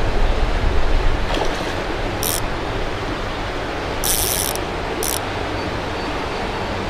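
Steady rush of creek water with wind on the microphone, cut by three short high buzzes of a fishing reel's drag slipping as a hooked smallmouth bass pulls line: one about two seconds in, a longer half-second run about four seconds in, and a brief one just after.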